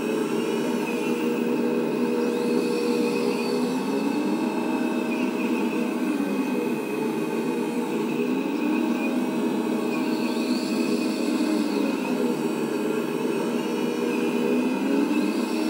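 Radio-controlled Liebherr 996 hydraulic excavator model running with its sound system's simulated diesel engine and its hydraulic pump at idle speed. It makes a steady hum whose pitch rises and falls in slow waves as the boom, stick and bucket are worked together.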